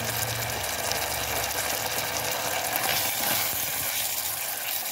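Sliced beef sizzling steadily in oil and sauce in a hot pot while it is stirred with chopsticks.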